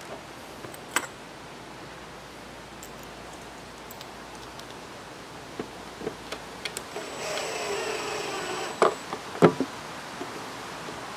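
DeWalt 12-volt cordless drill driving a metal screw through a mounting clip into a plastic enclosure: one motor run of about a second and a half, with the pitch gliding under load. A few light clicks come before it and a couple of sharper knocks just after it.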